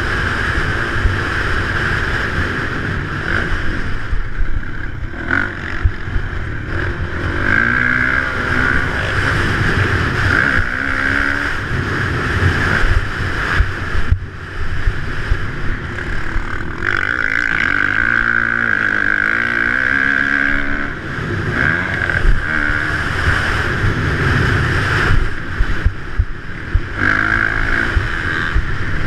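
Dirt bike engine revving up and easing off over and over as it is ridden around a motocross track, with wind rush on a helmet-mounted camera.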